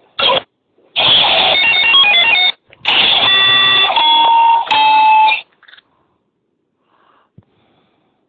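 Bell-like electronic jingle played through a classroom sound-field FM speaker system. A short blip is followed by quickly stepping ringing notes, then held bell tones. The sound stops suddenly about five and a half seconds in.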